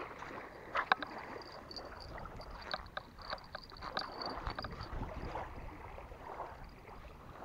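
Small waves lapping at a sandy lake shore, with scattered sharp clicks and a faint high-pitched whine for a few seconds near the middle.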